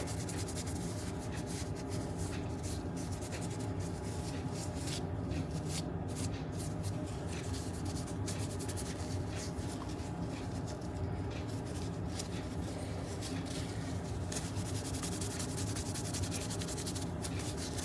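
A cloth rubbing over a stained wooden tool handle, wiping stain off and working it in, as a continuous soft scratchy rubbing over a steady low hum.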